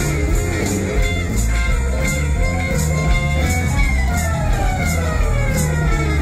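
Live rock and roll band playing an instrumental passage: electric guitars, drums with steady cymbal strokes, and a Yamaha CP stage piano. A long slide falling in pitch runs through the last couple of seconds.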